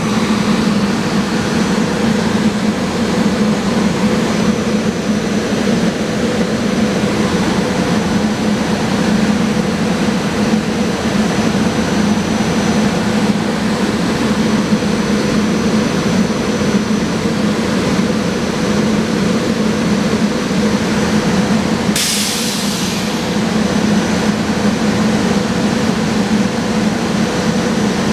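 SEPTA Silverliner IV electric commuter train standing at the platform, its onboard equipment running with a steady low hum and a faint high whine. About three-quarters of the way through comes a sudden burst of hiss that fades over a second or two.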